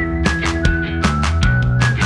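Background music: a steady drum beat under held bass notes and a sustained lead melody line that slides between notes.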